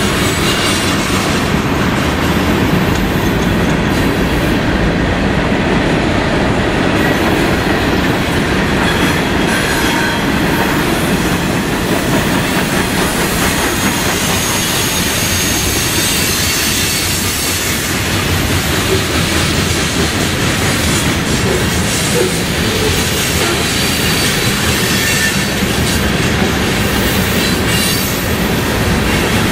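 Freight train's cars rolling past: a steady, loud rumble of steel wheels on the rails that holds unchanged throughout.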